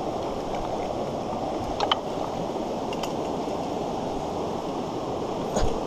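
Shallow stream running over stones: a steady rush of water, with a couple of faint short clicks about two seconds in and near the end.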